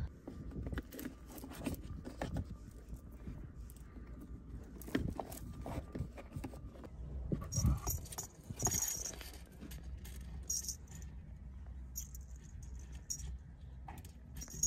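Thin metal chains and charms of a hanging rearview-mirror ornament jingling and clinking as they are handled, in short bursts with small clicks, over a low steady rumble.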